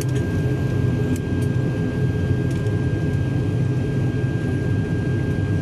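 Cabin drone of a twin-turboprop airliner's engines and propellers as it rolls out on the runway after landing: a steady low hum with a thin, steady high whine over it and a few faint rattles.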